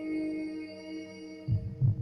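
The final ringing notes of a piece of music dying away, followed by two dull, low thumps near the end.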